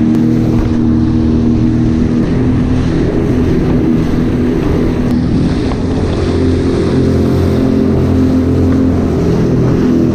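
Personal watercraft (jet ski) engine running under way, its note rising about two seconds in as it speeds up and easing back near the end, with wind on the microphone and water spray hissing.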